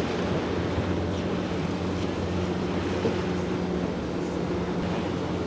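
Boat engine running steadily at trolling speed: a constant low drone, with wind and water noise over it.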